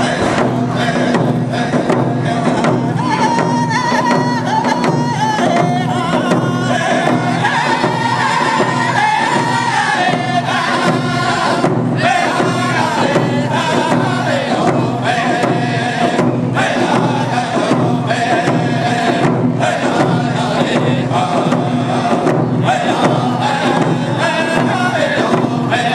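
Round dance song: a group of male singers beating single-headed hand drums in a steady, even beat while singing together in unison.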